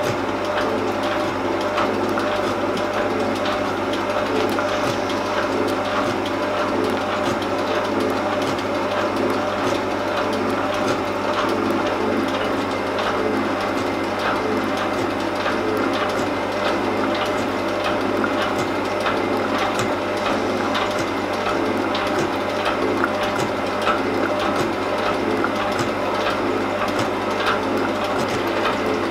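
Elliott metal shaping machine running, its ram stroking back and forth as the tool takes light cuts across an aluminium plate. Steady machine noise with regular clicks throughout.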